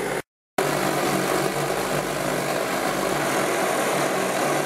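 Pre-war Hähnel No. 43 pressurised gasoline blowtorch burning, a steady rushing hiss with a low hum. It starts after a short silent break just after the start.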